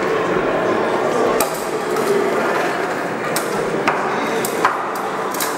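Wooden battens of a lashed timber structure knocking and clattering as they are gripped and shifted, a handful of separate sharp knocks over a steady background noise.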